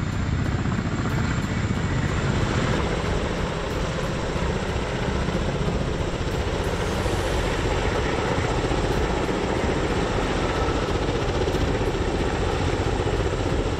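Sikorsky-Boeing SB-1 Defiant compound coaxial helicopter in flight, its stacked twin rotors and tail pusher propeller making a steady rotor noise. The noise grows fuller about halfway through.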